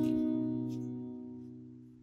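Background music ending on a held chord that rings and fades away steadily to near silence.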